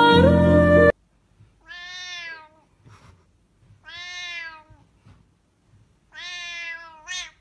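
A cat meowing: three long, drawn-out meows about two seconds apart, then a short one at the end. Music cuts off about a second in, before the first meow.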